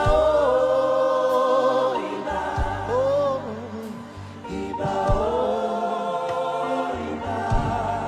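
Gospel worship music: voices singing together in two long held phrases over steady low instrumental backing.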